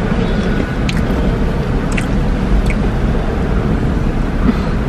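A steady low rumble with a few faint, brief clicks.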